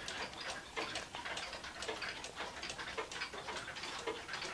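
1970s Emperor grandfather clock with a chain-driven Hermle movement, its pendulum escapement ticking steadily at about two ticks a second.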